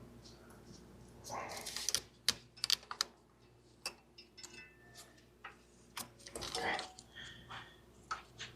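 Hands working on a car's wiring harness: a scatter of sharp plastic clicks and light rattles, with rustling, as connectors and clips are handled and worked loose.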